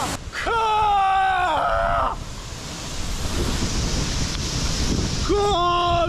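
Steady rush of a waterfall and its stream. About half a second in, a high-pitched voice gives a drawn-out cry that falls in pitch over about a second and a half, and a short shout follows near the end.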